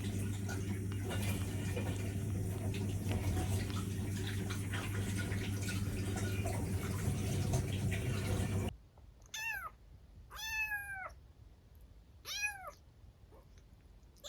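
A steady rushing noise with a low hum cuts off abruptly about nine seconds in. A black kitten then meows three times, each a short call that rises and falls in pitch.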